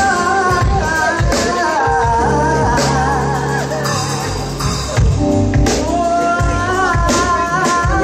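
Live band: a woman singing a wavering melody into a microphone over keyboard chords, with a drum kit keeping a steady beat.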